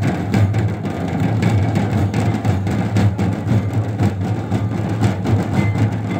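Several hand drums played together by dancing drummers in a fast, steady folk-dance rhythm, dense strokes over a deep low drum tone.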